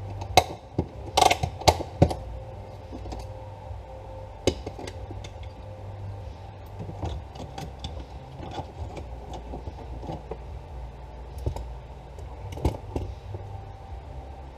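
Hand tools clicking and knocking on metal car parts: a cluster of sharp knocks in the first two seconds, then scattered lighter clicks, over a steady low hum.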